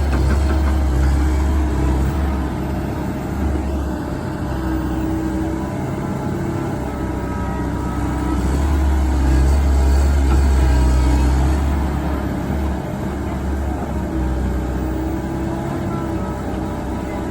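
Komatsu PC130 excavator's diesel engine running steadily while digging, its level swelling and easing, loudest at the start and again around the middle.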